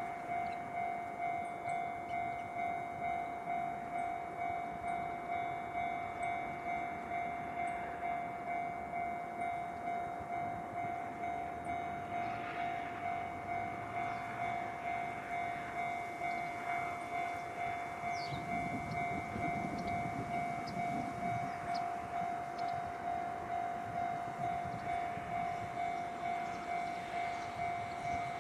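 Railway level-crossing warning bell ringing, one pitched ding repeating evenly about one and a half times a second: the signal that a train is approaching.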